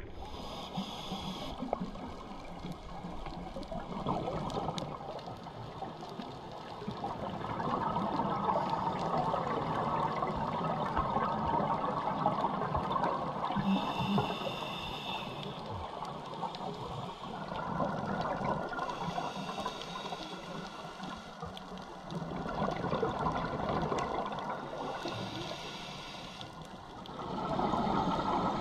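A scuba diver breathing through a regulator underwater: four hissing inhalations, each followed by a long bubbling exhalation.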